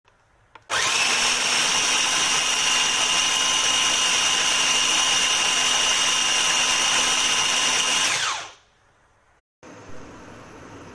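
Food processor motor running at full speed as it purées tomato and onion: a loud, steady whine that starts about a second in and winds down and stops after about seven seconds.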